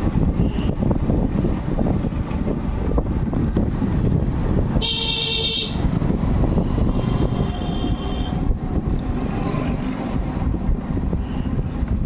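Steady wind and road rumble, with a vehicle horn sounding for about a second roughly five seconds in and a fainter horn tone about two seconds later.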